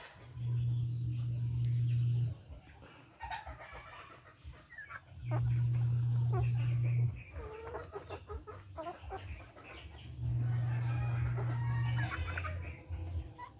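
Flock of hens clucking in short, scattered calls as they feed. A loud, steady low hum comes on three times, about two seconds each, roughly every five seconds.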